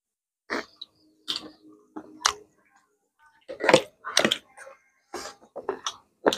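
Close eating sounds on a clip-on microphone: chewing and lip smacks with a few short clicks, sparse at first and busier from about three and a half seconds in.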